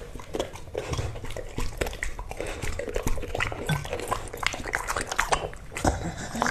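Pit bull chewing and smacking its lips: a run of irregular wet clicks and crunches.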